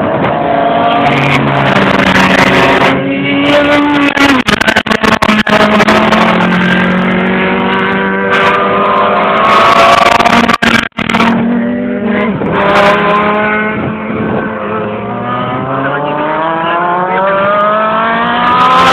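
Open-wheel single-seater race car engines running hard on a circuit, their pitch climbing through the revs and dropping back at each gear change, over and over. There is a brief break a little before the middle.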